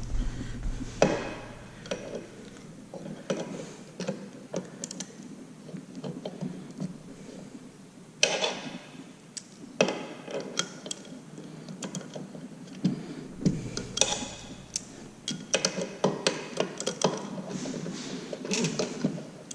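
Metal hand tools clinking and a socket ratchet clicking as a shallow socket is fitted and a connecting rod cap screw on a small single-cylinder engine is worked loose. Irregular sharp clicks and knocks, with a few louder clusters of clatter.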